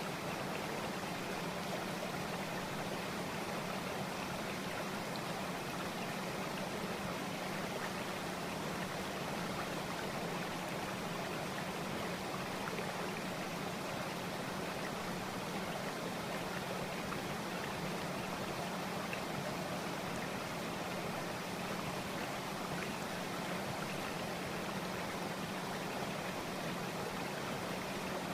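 A steady, unchanging rushing noise with a low hum in it.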